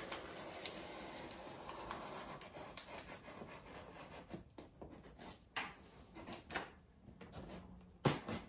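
Box-cutter blade slicing through packing tape along the top of a cardboard box: a faint, steady scraping at first, then broken scrapes and small ticks, with a sharp click near the end.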